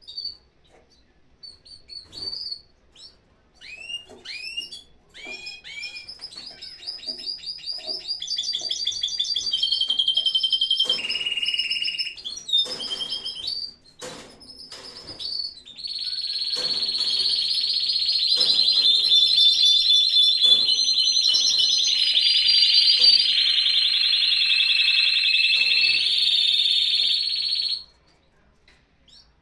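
Timbrado canaries singing: short chirps and slurred notes, then fast rolling trills that build into long, continuous rolls. The song cuts off suddenly near the end.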